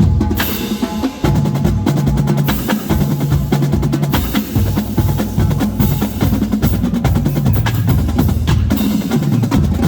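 College marching drumline playing loud, fast rhythmic patterns on snare drums and bass drums, the bass drums sounding at several different pitches in turn.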